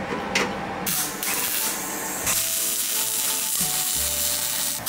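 Welding arc crackling and sizzling as glass-pack mufflers are welded into a car's exhaust. The sizzle starts about a second in and holds steady.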